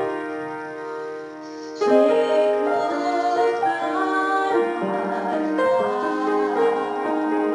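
Solo piano playing slowly: a held chord dies away, then a new phrase starts about two seconds in and moves on through changing chords.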